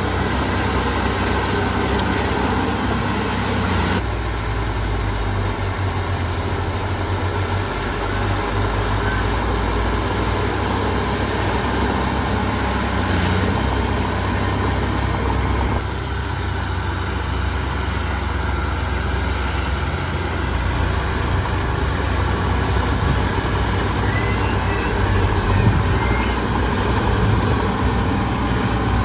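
Heavy diesel earthmoving machinery engine running steadily, a deep continuous drone whose sound shifts abruptly about 4 and 16 seconds in.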